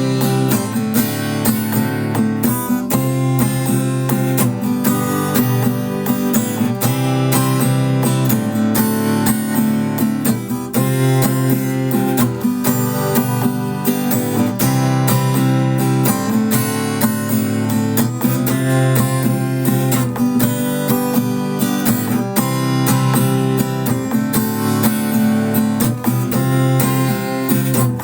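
Acoustic guitar strumming chords in a steady rhythm at about 125 BPM, with no singing.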